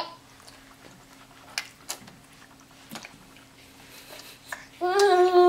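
Baby eating with a few faint mouth clicks and smacks, then near the end a loud, held, even-pitched "aah" vocalization from the baby.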